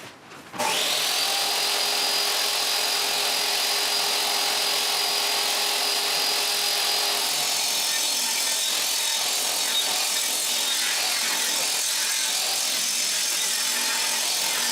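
Electric power tool motor switched on, its whine rising quickly about half a second in, then running steadily at full speed.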